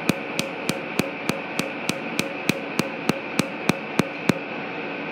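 Tattoo-removal laser firing pulses into the skin: a sharp snap about three times a second, evenly spaced, over a steady machine hum. The pulses stop near the end.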